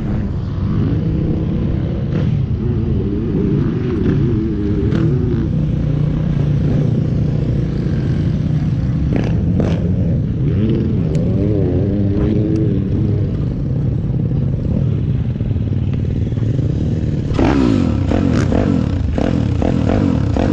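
Piranha P190 pit bike engine idling, with short throttle blips a few seconds in, around the middle and again near the end, and a few light clicks.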